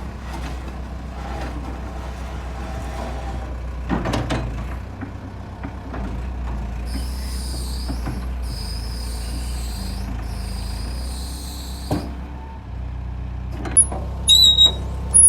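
Hitachi EX100-5 excavator's diesel engine running with a steady low rumble. There are metallic clanks about 4 and 12 seconds in, a hiss through the middle, and sharp high squeaks near the end.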